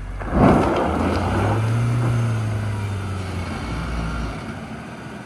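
A vehicle on an off-road hill-climb track: a sudden burst of noise about half a second in, then a low engine note that rises and falls over a few seconds before dying away.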